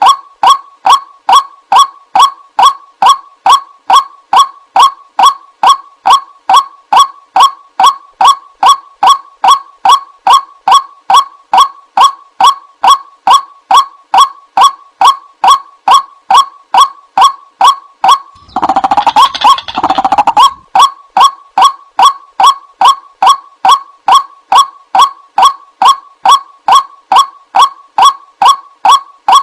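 White-breasted waterhen (Amaurornis phoenicurus) calling, a short hooked 'kwak' note repeated evenly about twice a second, as in a looped lure call. About two-thirds of the way through, a rougher, denser two-second burst of calls briefly replaces the steady repeats.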